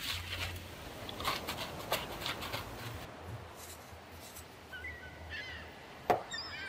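Paper towel rustling and crinkling as gloved hands handle it, with small knocks of handling on a wooden workbench. Later come a few short high squeaks and one sharp knock near the end, the loudest sound.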